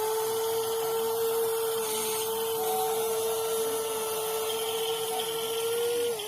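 Small electric motor of a WLtoys 16800 RC metal excavator whining at a steady pitch. It spins up at the start and dips briefly near the end.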